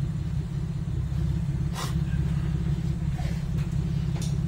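Car engine idling, a steady low rumble heard from inside the cabin, with a couple of faint short noises over it.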